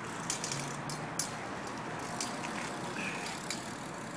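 BMX bike riding over asphalt, with a few sharp knocks and rattles from the bike, the loudest about a second in.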